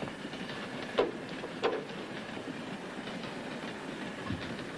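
Steady running noise of a moving passenger train heard from inside a railroad car, with two sharp clacks about a second in and shortly after.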